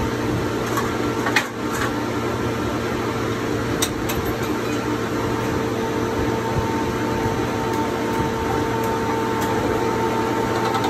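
Fletcher walk-through roof bolting machine running with a steady mechanical hum; a higher whine joins about halfway through, and there are two sharp clicks in the first four seconds.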